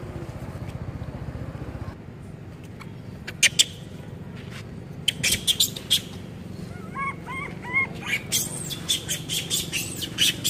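Macaques giving rapid, shrill, high-pitched squeals and chirps in clusters from about five seconds in, after two sharp clicks near three and a half seconds.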